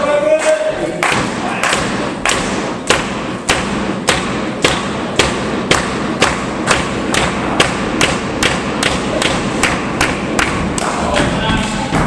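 A steady run of sharp, heavy thuds, about two a second and slightly quickening, beginning about a second in and going on for some ten seconds, with crowd voices at the start and near the end.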